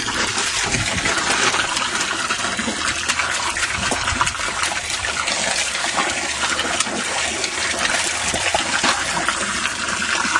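Garden hose spraying a steady stream of water into a shallow tarp-lined pool, a continuous gushing splash, with the irregular splashing of a springer spaniel puppy's paws as it walks through the water.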